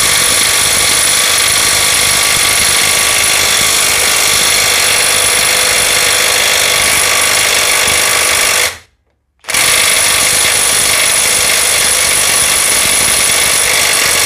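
Bull BL800NM 21 V cordless brushless impact wrench hammering steadily on a nut set to 1140 Nm, in two long runs with a brief stop about nine seconds in. The nut does not break loose: 1140 Nm is beyond what this wrench can open.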